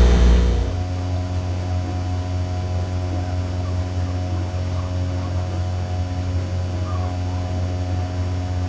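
Steady machine hum holding a few fixed tones, with no change in level throughout.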